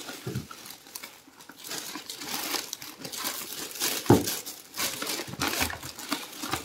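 A plastic bag crinkling and rustling irregularly as hands rummage through it, with one short thump about four seconds in.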